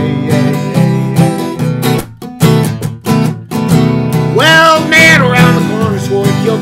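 1971 Yamaki acoustic guitar strummed in E minor, with a man's singing voice coming in over it about four seconds in.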